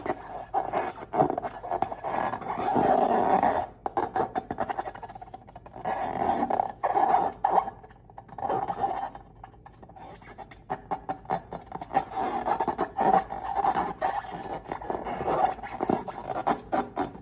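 Slime being squished and stretched by hand: a stream of uneven sticky crackles and squelches, over a squeaky tone that swells and fades.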